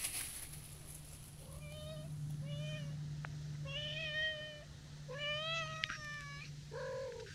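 Tortoiseshell cat meowing over and over in long, drawn-out nyaa calls: four meows, the fourth the longest, then a shorter, lower one near the end.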